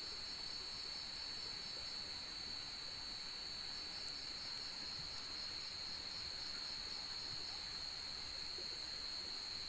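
Night chorus of crickets and other insects: a steady, high-pitched, overlapping trill, with one higher call repeating about once a second.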